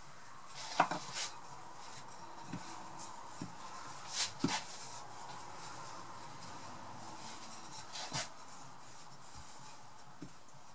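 Wooden rolling pin rolling out pastry on a floured worktop: soft rubbing with a few sharp knocks as the pin is set down and pushed, the loudest about a second in and others near four and eight seconds.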